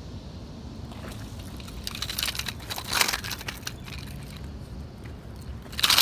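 Crackling, crunching rustle of dry grass and brush on the bank as a freshly landed bass is lifted and handled, with a loud crackle about three seconds in and another near the end, over a steady low rumble.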